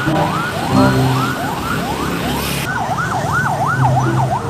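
Police car siren sounding: quick rising whoops, about two a second, switching a little under three seconds in to a faster up-and-down yelp, over street noise.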